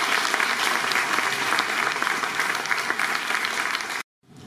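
Audience applauding, a steady clapping that cuts off suddenly about four seconds in.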